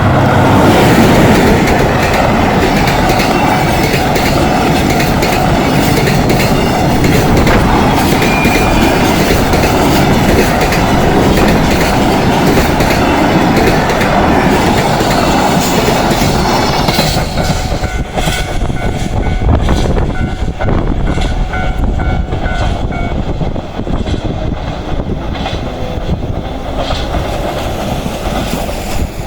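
Freight train passing a level crossing at high speed: a loud, dense rush of wheels on rail, easing after about 17 seconds into a rhythmic clickety-clack as the wagons go over the rail joints. A steady ringing, likely the crossing's warning bell, runs beneath it until about three-quarters of the way through.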